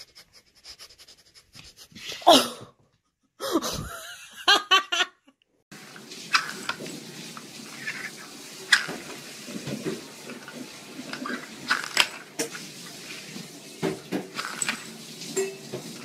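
A person laughing. Then, after a cut, a kitten playing with small plastic lids on a wooden floor: scattered sharp clicks and taps as the lids are knocked about.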